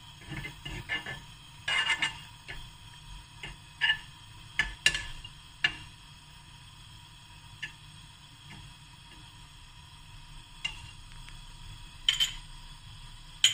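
A metal fork scraping and clicking against a non-stick frying pan as a knob of butter is rubbed around it to grease it, with the butter faintly sizzling. The scrapes come thick in the first several seconds, then only now and then.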